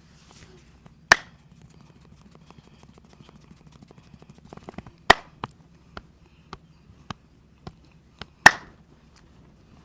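Sharp percussive hits from the masseur's hands during a head and back massage: three loud, sharp strikes spaced a few seconds apart, with lighter taps in between over a faint low hum.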